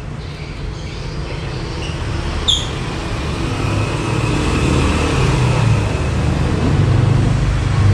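A steady low engine-like hum that grows gradually louder, with one short sharp click about two and a half seconds in.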